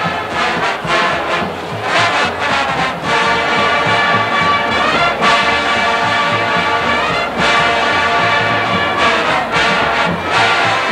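College marching band playing a big-band style number, the brass section leading with held chords and several accented hits.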